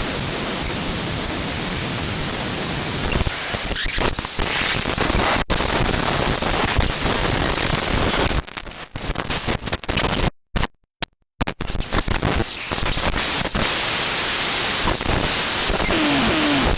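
Glitch sound effect: dense crackling static with a faint high whistle over the first few seconds, broken by abrupt stuttering cut-outs to silence around ten to eleven seconds in.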